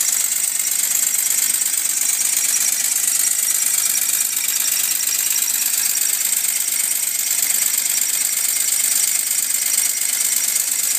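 Working model American La France fire engine running and pumping water: a steady hiss with a fast, even ticking through it.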